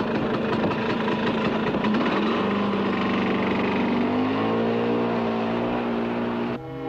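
A loud motor engine running with a rapid, rough pulse. Dramatic orchestral music swells over it from about two seconds in, and near the end the engine cuts out, leaving the music alone.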